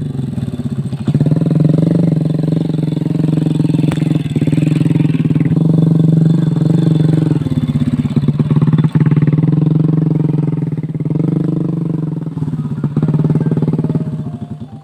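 Motorcycle engine running steadily at low revs, with brief dips in pitch about nine seconds in and again near thirteen seconds.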